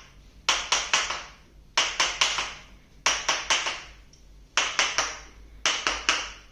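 Sharp slapping taps in quick bursts of three or four, five bursts about a second and a half apart, from a chiropractor's percussive work on the back of the thigh and knee to release an overactive hamstring and popliteus.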